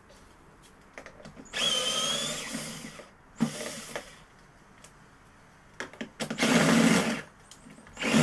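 Power drill-driver running in four short bursts, backing screws out of a washing machine, its motor whine wavering in pitch; the longest runs are about a second and a half in and again around six and a half seconds.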